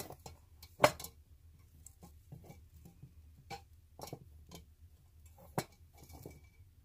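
Scattered light clicks and taps of artificial flower stems being handled and pushed into a small white container, with a sharper knock about a second in and another a little before the end.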